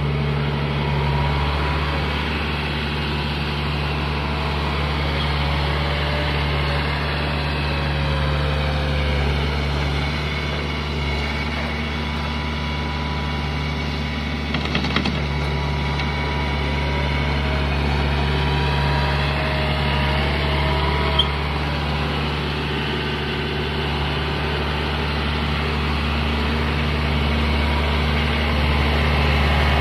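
John Deere 4044M compact tractor's diesel engine running steadily as it works dirt with its rear blade, a faint whine rising and falling over the drone. It grows a little louder near the end as the tractor comes close.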